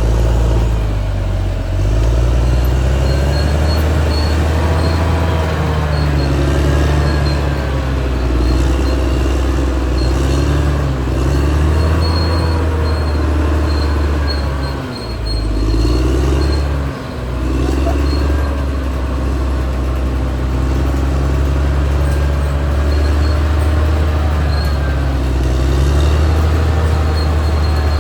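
Caterpillar D6R XL bulldozer's diesel engine running steadily under work, its note wavering up and down. The sound dips briefly twice about halfway through.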